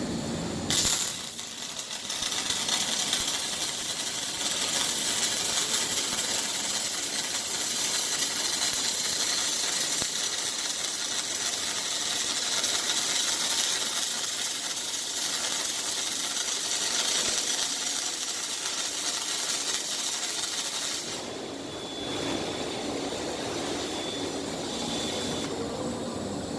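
Robotic MIG/MAG welding arc from a Fronius TPS 5000 power source, a steady crackling hiss that starts abruptly about a second in and stops suddenly about twenty seconds later as the weld ends. Quieter machine noise follows.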